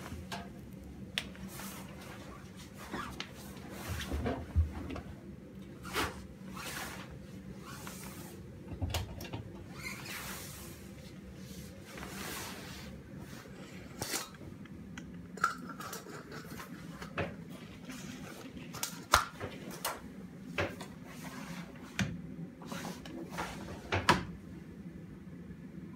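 Scattered knocks, clicks and clatters of Miele front-loading washing machines being handled by hand: laundry pushed into the drum, the door shut and the machine set up, over a faint steady hum.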